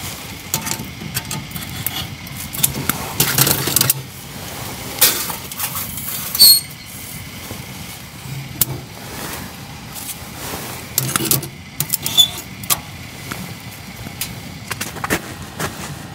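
Metal clinks and knocks from handling the stainless steel oven stove's oven door and pizza tray, with irregular crackling from the wood fire in the firebox. One clear ringing clink comes about six and a half seconds in, and a lighter ring comes about twelve seconds in.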